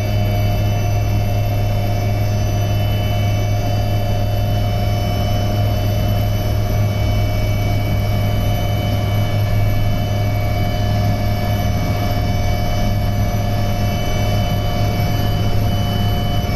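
Cabin noise of an HAL Dhruv Advanced Light Helicopter with engines and rotors running: a loud, steady deep hum under a constant high whine.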